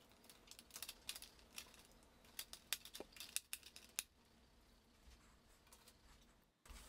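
Faint, quick plastic clicks and snaps as the little clips of a MacBook A1181's white plastic display bezel come undone while it is pried off, stopping about four seconds in.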